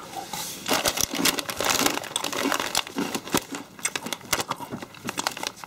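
Crisp packet crinkling as it is picked up and handled, a dense run of irregular crackles.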